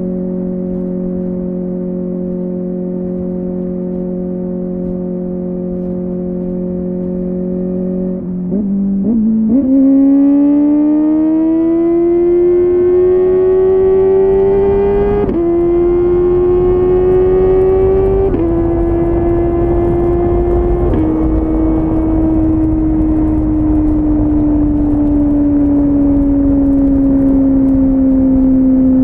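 Kawasaki ZX-4RR's 399 cc inline-four running through a Yoshimura AT2 slip-on exhaust. It holds a steady note for about eight seconds, then pulls away with a rising pitch broken by three sudden drops as it shifts up, about 15, 18 and 21 seconds in. Near the end the note eases slowly downward.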